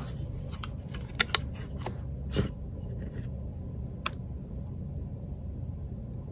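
Small sharp clicks and taps of a paper card and cardboard packaging being handled, several in the first two and a half seconds and one more about four seconds in, over a steady low hum.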